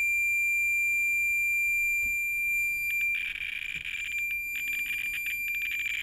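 Thermo RadEye B20 radiation survey meter sounding a steady, unbroken high-pitched alarm tone. The meter is in overload, swamped by the intense radium-226 source of a 1950s Pyrotronics F3 smoke detector. From about three seconds in, a crackling, rustling noise runs over the tone.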